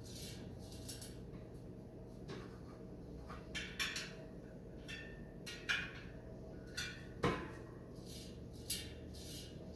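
Scattered light metallic clicks and clinks, about a dozen spread irregularly, from truing a bicycle wheel with a spoke wrench.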